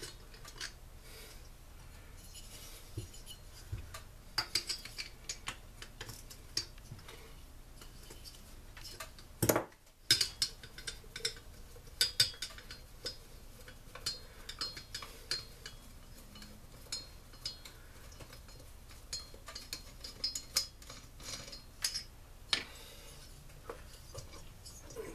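Small metal clinks, taps and scrapes of hand tools on the Stihl SR 420's two-stroke engine during teardown, as the cylinder is worked loose from the crankcase. The clicks come irregularly, with one louder clatter about ten seconds in.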